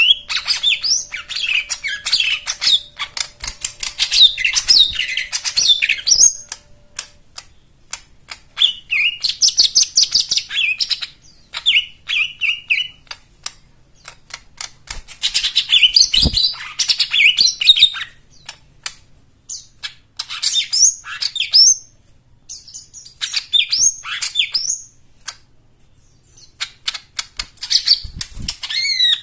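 Cucak ijo mini (jomin), a small leafbird, singing: rapid bursts of chattering chirps, clicks and sliding whistled notes packed with mimicked calls, in phrases a few seconds long separated by short pauses. A soft low thump about sixteen seconds in.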